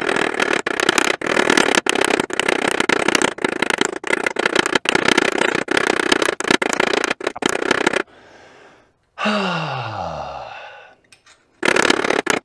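Hammer driving a pin punch into the collar of a rear axle nut to stake it: a fast, dense run of sharp metal taps with ringing, which stops after about eight seconds. A short sound sliding down in pitch follows about nine seconds in, and a brief run of taps comes near the end.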